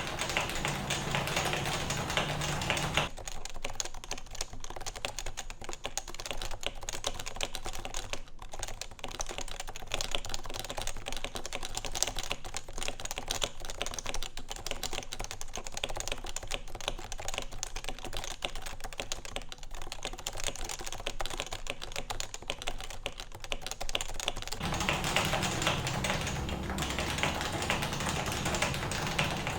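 Continuous fast typing on a Realforce keyboard with Topre electrostatic capacitive switches lubed with 205g0, in a case with a stainless steel plate. The keystrokes become thinner and quieter about three seconds in, and fuller again near the end.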